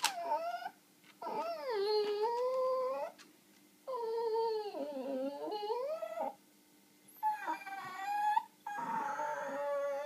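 A small dog whining in a crate: about five long, drawn-out whines, each a second or two long, sliding up and down in pitch with short pauses between them.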